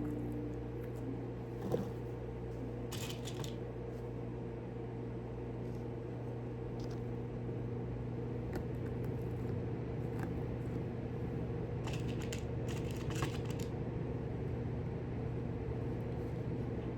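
Steady low electrical hum, with a few faint clicks and rustles of small parts being handled now and then.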